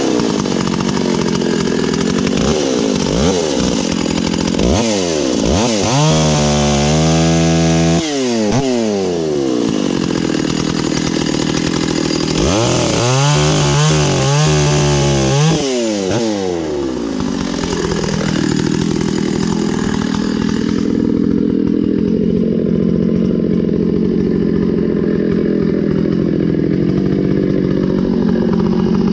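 Stihl 066 Magnum two-stroke chainsaw, its top end freshly rebuilt, revving up and down and twice held at full throttle for a couple of seconds, cutting wood. From about two-thirds of the way in it settles to a steady idle.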